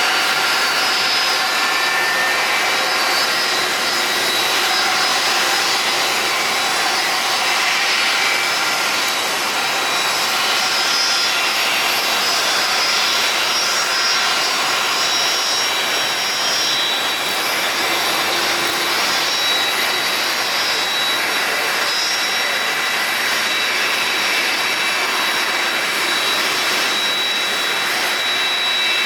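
Jet airliner engines running at low power on the apron: a steady rush with several high-pitched whines over it, one of which slowly rises in pitch partway through.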